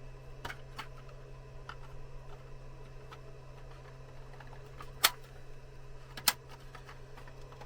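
Sharp clicks and taps of plastic parts being handled and snapped together as an instrument cluster's panel is fitted back on, with two loud clicks about five and six seconds in, over a steady low hum.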